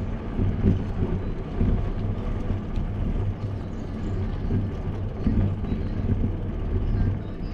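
Low rumble and gusty buffeting on a bicycle-mounted action camera's microphone as the bike rolls slowly over pavement: wind on the mic and tyre noise, rising and falling in irregular surges.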